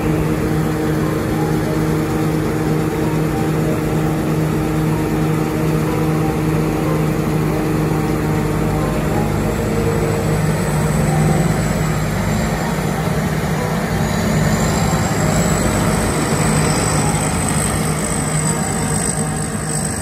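Tracked rice combine harvester running steadily as it crawls through the paddy, its engine a constant even drone. A thin high whine joins about halfway through and rises slightly a little later.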